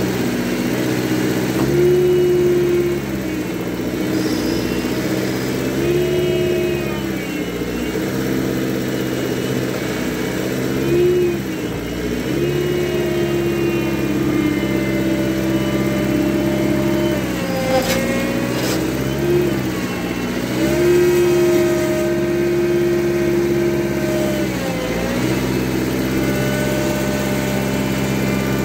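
Old Thomas skid steer engine running at working speed, its pitch sagging and recovering several times as the loader hydraulics are worked. A couple of sharp knocks come about two thirds of the way through.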